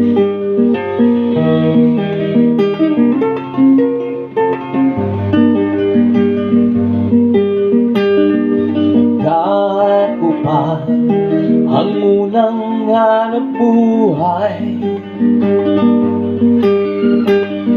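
Acoustic guitar music: strummed chords, with a melody line that slides and bends in pitch from about halfway through.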